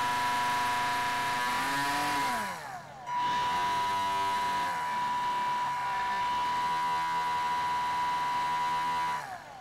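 Small electric motor of a radio-controlled boat whining under throttle. It winds down and stops about three seconds in, spins straight back up and runs steadily with slight throttle dips, then winds down near the end.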